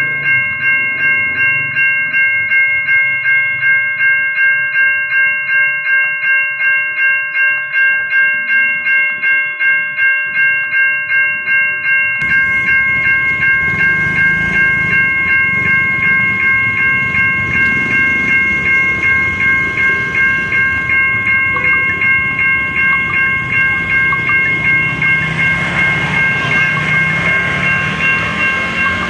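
Siemens level-crossing warning alarm ringing a multi-tone electronic bell, about two and a half strikes a second. About 12 seconds in, a passing train's rumble and wheel noise join it while the alarm keeps ringing.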